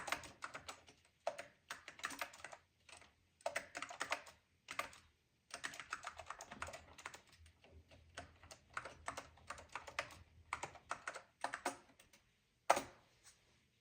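Typing on the keyboard of a Macintosh Color Classic: quick keystrokes in bursts with short pauses, and one louder single keystroke near the end.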